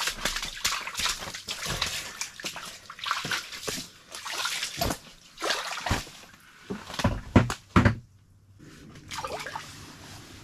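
Water splashing, sloshing and dripping as a just-landed cutthroat trout is handled over an ice-fishing hole, with irregular rustling and clicks and a few louder knocks about seven seconds in.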